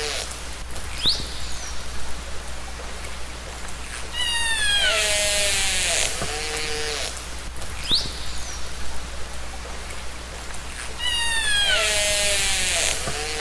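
Killer whale (orca) calls recorded underwater. Each group is a set of pulsed calls falling in pitch, plus a short rising whistle, over a steady hiss. The group repeats about every seven seconds, coming twice: about four seconds in and again near the end.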